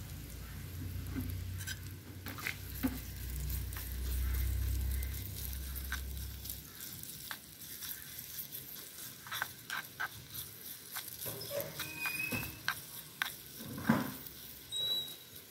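Chopped aromatics and whole spices sizzling in a tiny aluminium kadai over a small wood fire, while a small metal spoon clicks and scrapes against the pan as they are stirred. A low rumble runs under the first six seconds or so.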